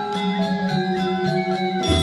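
Balinese semar pegulingan gamelan: bronze metallophones ring out a steady run of struck melody notes over sustained tones. Near the end the texture changes abruptly and a deep sustained low tone comes in.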